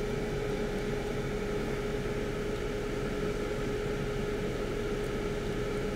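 Steady background machine hum with one constant mid-pitched tone over an even hiss. No handling clicks stand out.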